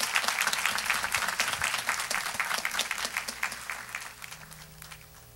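Congregation applauding, dense clapping that thins out and dies away near the end.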